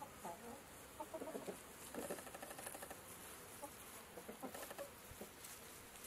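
Chickens clucking quietly in several short bouts of quick, low clucks.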